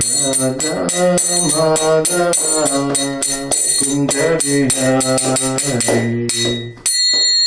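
Kirtan music: a melody over small hand cymbals struck in a quick steady beat. Near the end the music breaks off briefly and a cymbal is left ringing.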